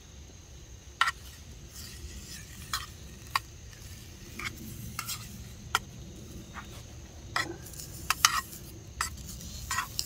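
A metal spoon clinking and scraping in a metal canteen cup as canned green beans are stirred, in scattered sharp clicks, over a low steady rumble.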